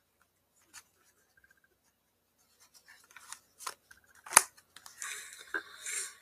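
Sports trading card pack being opened by hand: scattered light clicks, a sharp snap about four seconds in, then crinkling of the pack wrapper.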